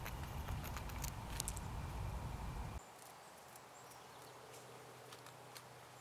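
Red squirrel gnawing a peanut shell: faint, irregular crackling clicks over a low rumble that cuts off abruptly about three seconds in.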